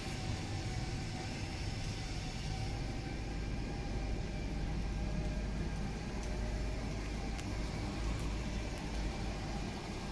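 Isuzu garbage truck's 88 kW diesel engine idling: a steady low rumble with a faint steady tone above it.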